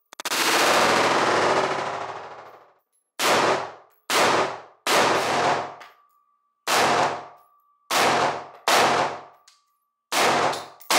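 Schmeisser AR-15 Dynamic semi-automatic rifle in .223 Rem firing: a dense run of reports blending together for about two and a half seconds, then about eight single shots spaced roughly a second apart, each ringing out briefly off the range walls.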